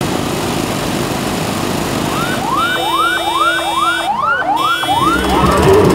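Electronic siren sounding in street traffic: a quick repeated rising wail, about two sweeps a second, coming in about two seconds in over steady traffic noise and fading near the end as the traffic noise grows louder.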